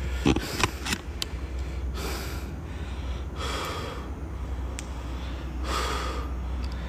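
A man breathing heavily close to a phone's microphone, one breath about every second and a half. There are a few sharp clicks in the first second and a steady low hum underneath.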